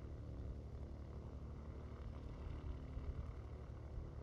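An engine running steadily, giving a low, even hum with no change in pitch.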